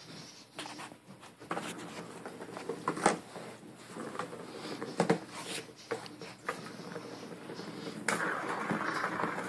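A plastic ball rolling and rattling around the circular track of a cat's scratch-pad toy as a tabby cat bats at it, with sharp knocks against the plastic, the loudest about three seconds in and again about five seconds in.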